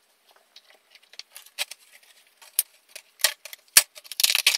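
A plastic bag of small metal assembly hardware being handled: irregular crinkling and clicking as the parts inside knock together, thickening into a dense rustle near the end.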